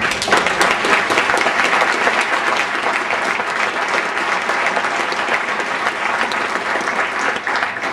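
An audience applauding: many people clapping together in a dense, steady run that starts suddenly.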